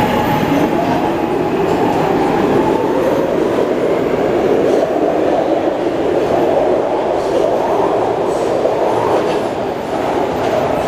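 SEPTA Adtranz M-4 subway train pulling out of the station and running past along the platform, a steady loud rolling noise of wheels on rail that dips briefly near the end.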